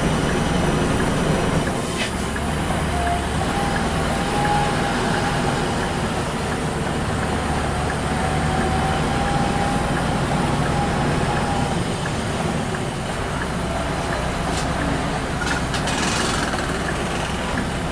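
Scania R580's V8 diesel engine running steadily at low speed, heard from inside the cab as a continuous low drone. A short hiss comes near the end.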